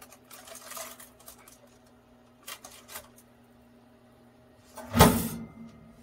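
A pizza is slid onto the wire rack of a NUWAVE air fryer oven, with a soft scrape and a couple of light clicks. About five seconds in, the oven's glass door shuts with a sharp clunk, the loudest sound here. A low steady hum runs underneath.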